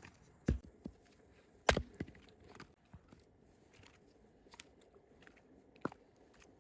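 Irregular knocks and clicks: three sharp knocks, about half a second, a second and a half and six seconds in, among many fainter ticks.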